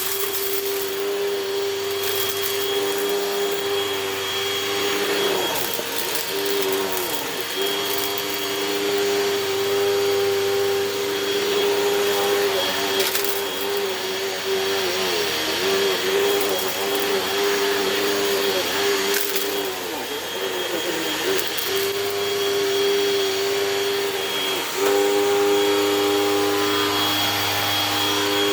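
Hoover Rewind upright vacuum cleaner running steadily, its motor pitch dipping and wavering now and then as the load changes, and stepping up slightly louder near the end. The brush roll rattles: the roller brush is bad and the belt needs replacing.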